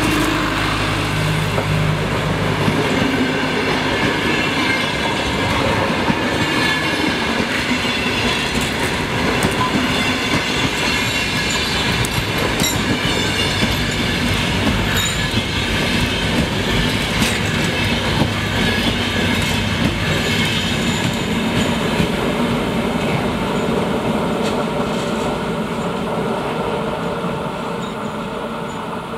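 Double-deck passenger train passing close by on electrified track: a steady loud rumble of wheels on rails with scattered clicks, fading over the last few seconds as the final coaches pull away.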